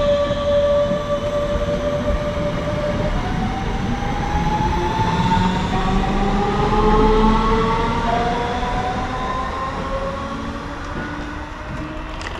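DB class 425 electric multiple unit pulling away, its traction drive whining in several tones that first hold steady and then glide upward in repeated steps as it accelerates. Under the whine is a low rumble of the train running on the rails, and the whole sound fades in the last few seconds as the train moves off.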